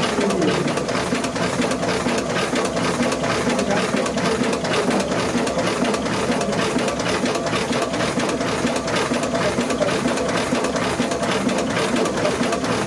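Steam engine machinery running steadily with a fast, even mechanical chatter and a low hum, one tone falling in pitch about a second in.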